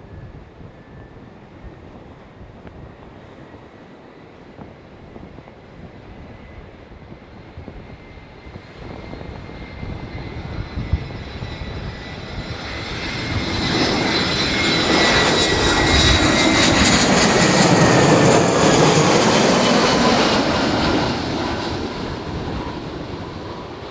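Jet airliner on final approach, an easyJet Airbus A320-family jet, flying past close by: its engine noise builds from a faint distant rumble to a loud peak about two-thirds of the way through, with high whines that drop slightly in pitch as it passes, then begins to fade.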